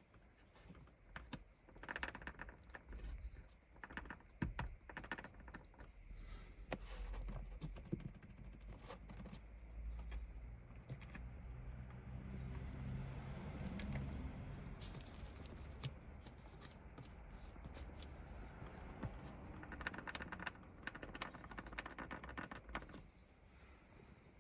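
Irregular clicking and rattling of plastic car interior trim being handled, with short knocks and a low rumble strongest in the middle stretch.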